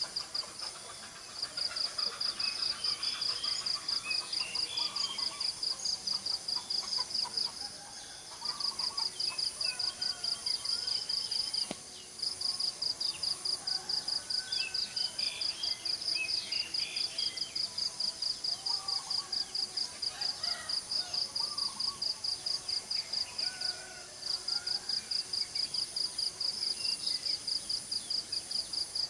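An insect, cricket-like, chirping in a rapid, even high-pitched pulse train that stops briefly a few times, with scattered bird calls and chirps over it.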